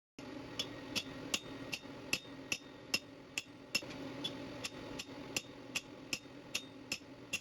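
Hammer gently tapping the end of a hot metal tube while it is rotated, upsetting the wall into a bulge: light, evenly spaced taps about two and a half a second, each with a short high ring, over a steady low hum.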